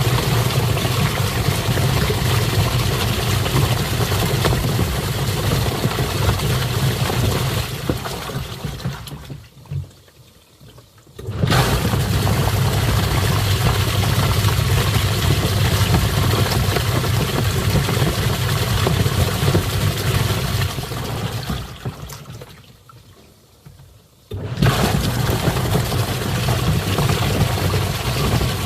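Twin-tub washing machine churning water in its wash tub, a steady motor hum under the swirling water. Twice the motor winds down and the churning dies away, then it starts again abruptly, as the wash timer pauses and reverses direction.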